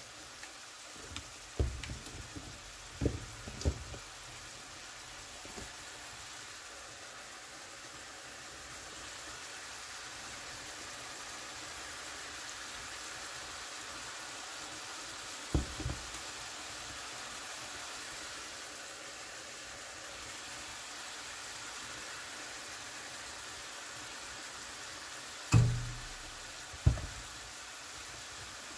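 Sliced beef sizzling steadily in a frying pan as it cooks. A few sharp knocks break in, the loudest near the end.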